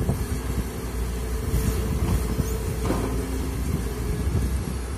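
Komatsu PC200 hydraulic excavator's diesel engine running under load while it digs and lifts its bucket, with a steady whine over the engine and a single clunk about three seconds in.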